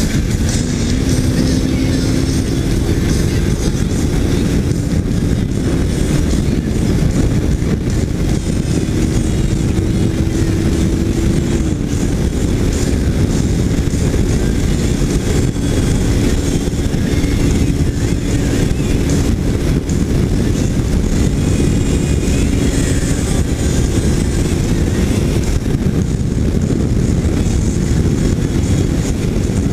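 Kawasaki Ninja 300 parallel-twin engine pulling under way over heavy low rumble and wind rush. Its note climbs over the first ten seconds, drops about twelve seconds in, then holds fairly steady.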